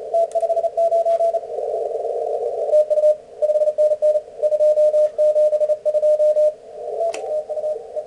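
Morse code (CW) signal heard through an Elecraft K3 transceiver's receiver: a fairly strong keyed tone of dots and dashes over band hiss squeezed into a narrow CW filter. The tone steps slightly lower in pitch about three seconds in, and there is a single click about seven seconds in.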